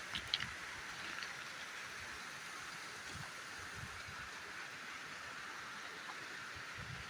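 Mountain waterfall rushing steadily, an even hiss of falling water. A couple of brief sharp clicks just after the start.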